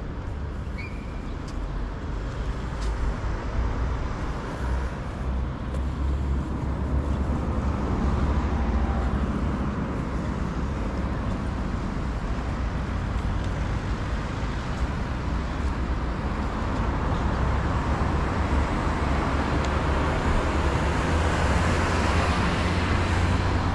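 City road traffic: a steady rumble of car engines and tyres that swells as vehicles pass, about eight seconds in and again near the end.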